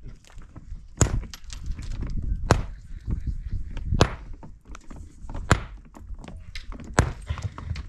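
Heavy blows from a hand tool at a steady pace, about one every second and a half, with lighter knocks in between.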